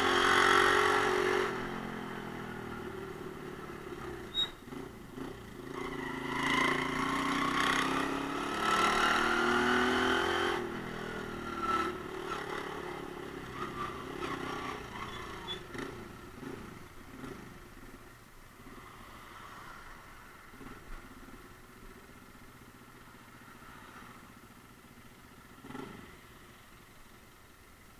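Romet Ogar Caffe 125's small single-cylinder engine revving up with rising pitch, easing, then revving up again until it cuts off sharply about ten seconds in. After that it runs quietly and softly, with a few light clicks and a thump near the end as the bike slows and stops in traffic.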